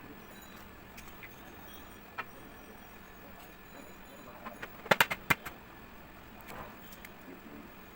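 Light kitchen clatter: a few sharp clicks and knocks of utensils or dishware, with a quick cluster of three about five seconds in.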